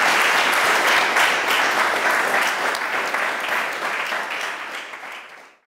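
Audience applauding at the end of a lecture, thinning out and fading away, then cut off near the end.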